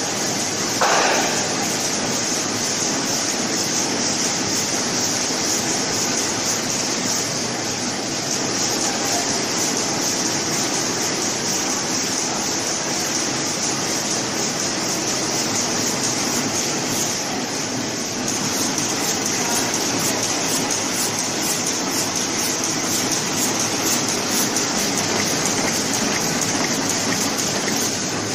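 Flow-wrap (pillow-pack) packaging line and its conveyors running: a steady mechanical noise with a strong hiss. A brief louder knock comes about a second in.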